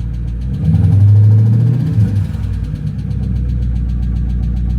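Dodge Scat Pack's 392 HEMI V8 idling with a steady rhythmic tick, its note briefly rising and getting louder about half a second in before settling back to idle. The owner calls it a bad tick and takes it for a failing lifter.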